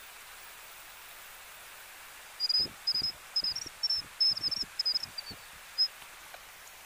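A quick run of about a dozen short, high chirps from a small animal, starting a couple of seconds in and stopping near the end, each with a low knock under it, over a steady faint outdoor hiss.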